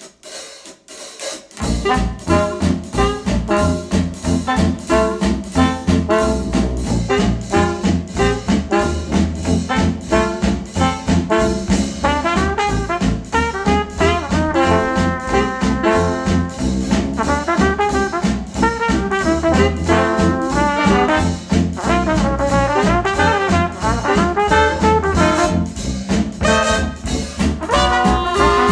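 Retro jazz band with trombone and trumpet leading over a steady beat, starting about a second and a half in after a brief gap. It is played back through KEF bookshelf speakers, the LS50 Meta and the R3 in turn.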